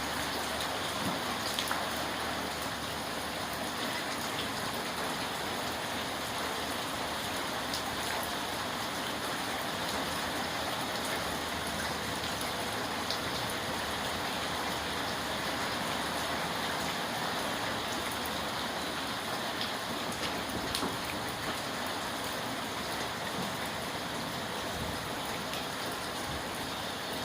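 Steady rainfall, an even hiss with scattered sharp drop ticks.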